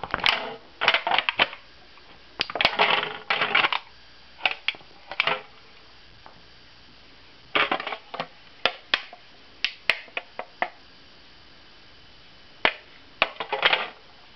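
An empty beer can being stomped and crushed under rugby boots with 32 mm steel-tipped studs, the metal crumpling and being punctured. It comes in about six bursts of crunching and sharp clicks, with short pauses between.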